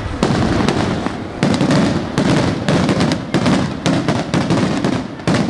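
Aerial fireworks going off in a rapid barrage: sharp bangs several times a second over a continuous low rumble, easing briefly about five seconds in before another bang.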